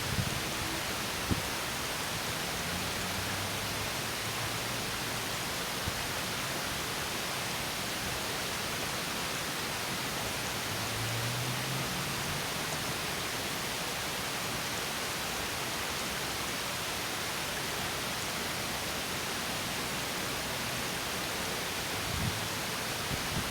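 Small stream spilling over a mini waterfall: steady, even rushing and splashing of falling water.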